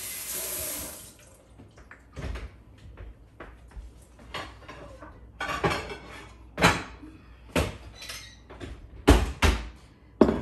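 A kitchen tap runs briefly at the start, then a cupboard door and dishes knock and clink several times as a glass serving platter is taken out of a low cabinet. The loudest clatters come near the end.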